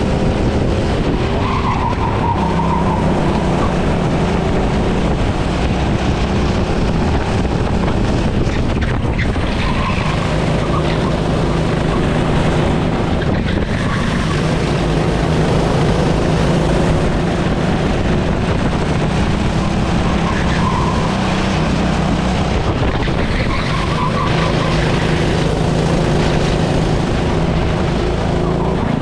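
A racing engine running hard at speed, its pitch rising and falling repeatedly as the revs change through the lap, over a steady rush of noise.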